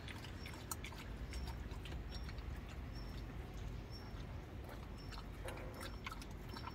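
Faint scattered clicks and rustles from newborn puppies being picked up and set down on a plastic mat. A short, high chirp repeats about once a second.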